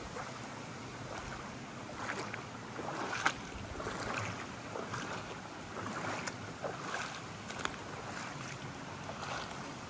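Shallow rocky creek trickling over stones, with footsteps crunching and knocking on loose stones and gravel at irregular intervals, the sharpest click a little after three seconds in.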